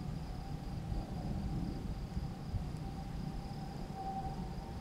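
A faint, distant siren holding one steady tone that swells slightly near the end, over the steady chirring of crickets and a low rumbling noise.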